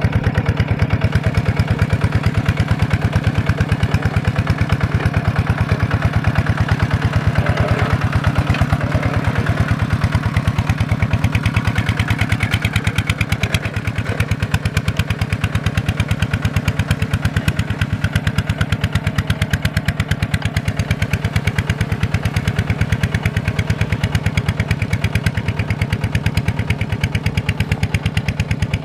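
Kubota diesel engine running steadily, an even rapid beat of firing pulses with no change in speed.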